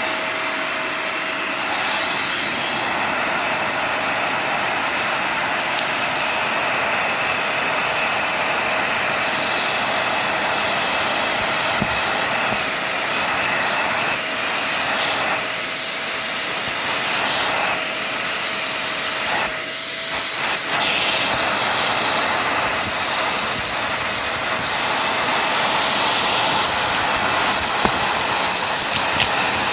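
Vacuum cleaner running steadily on a shaggy rug: a constant whine over a loud hiss of air, its sound shifting briefly twice in the middle.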